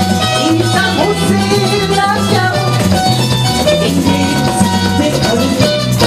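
Latin-style Trinidadian band music: a woman singing to strummed cuatros over a bass line and conga drums keeping a steady beat.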